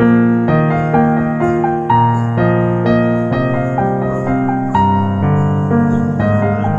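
Background music played on piano, a new note or chord sounding about every half second.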